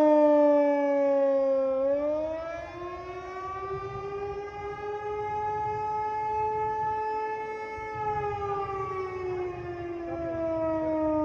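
Outdoor tornado warning siren sounding during a test, a wailing tone that dips, rises over a few seconds, holds high, then slowly falls again. Its loudness swells and fades, quietest while the pitch is highest.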